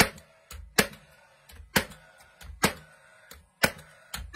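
Nail gun firing nails into a new pine floorboard, a sharp crack about once a second with a short low thump just before each shot.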